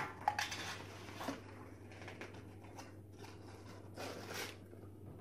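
Light rustling and crinkling of a paper leaflet and a potato-chip canister being handled, with a couple of sharp clicks at the start and a longer rustle about four seconds in.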